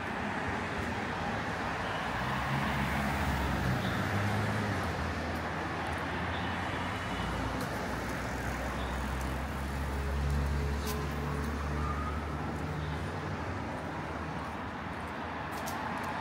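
City street traffic: a steady rush of passing vehicles, with the low hum of a nearby engine through most of the first two-thirds.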